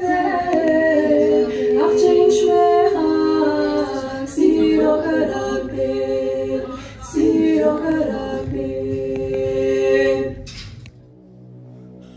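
Unaccompanied choir singing long, held notes in harmony, with short breaks between phrases; the singing stops about a second before the end.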